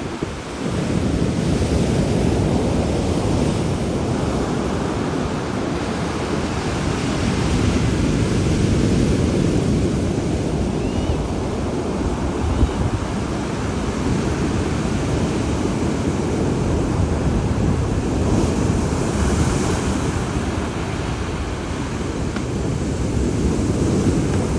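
Big storm waves breaking and washing in a steady roar, with gusting wind buffeting the microphone.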